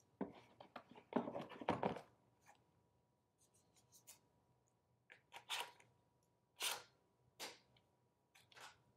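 Handling sounds of a Theragun PRO massage gun and its battery being taken from a fabric carrying case: a quick run of rustles and small plastic clicks in the first two seconds, then a few separate short scuffs.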